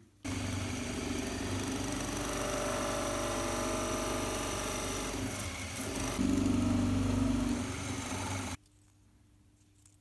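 Drill press running with its bit boring into small wooden discs held in a jig. The sound gets louder and deeper about six seconds in, then stops abruptly near the end.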